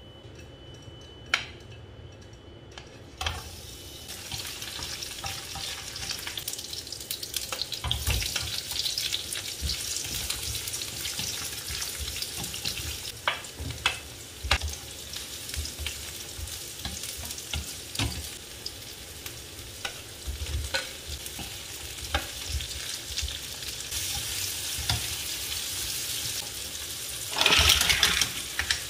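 Sliced onions and ginger sizzling in hot oil in a nonstick frying pan, starting about three seconds in, while being stirred, with frequent ticks and knocks of the utensil against the pan. Near the end a load of green mussels is tipped into the pan with a loud clatter of shells and a surge of sizzling.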